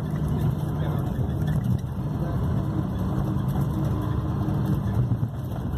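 Intercity bus engine running at low speed, a steady low drone heard from inside the passenger cabin.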